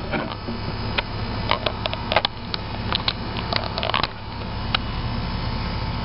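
York 2.5-ton straight-cool air conditioner's outdoor unit running with a steady hum. Between about one and five seconds in there is a run of clicks and light knocks from the camera being handled against its sheet-metal cabinet.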